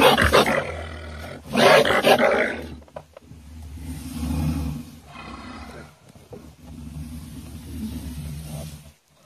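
A wild animal caught in a log box trap growling at the person at the trap: two loud harsh outbursts in the first two seconds, then two longer, lower growls. The growling stops suddenly near the end.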